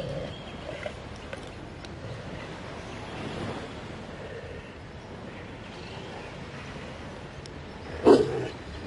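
Two Great Danes growling low and steadily as they tug at a coconut together in play, with one sudden, much louder growl about eight seconds in.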